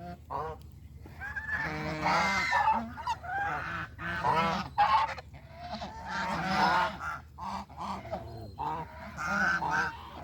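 Farm geese honking, several birds giving repeated calls in bursts of a second or so, sometimes overlapping.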